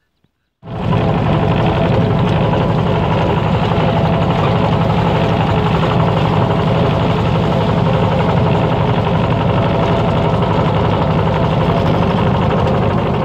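Engine of the wooden-decked farm vehicle carrying the camera, running steadily and loud with a fast, even chug. It cuts in sharply under a second in.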